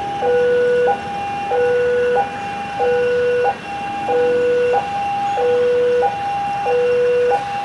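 Railway level-crossing warning alarm sounding a steady electronic hi-lo two-tone, a higher tone alternating with a lower one about every two-thirds of a second, warning of the approaching train.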